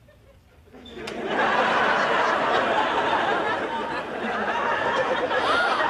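Crowd of people laughing and chattering, breaking out suddenly about a second in and continuing loudly.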